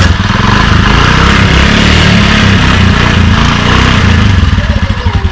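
Honda CD70 motorcycle's small 70 cc single-cylinder four-stroke engine running loudly just after starting, settling into an even idle pulse near the end.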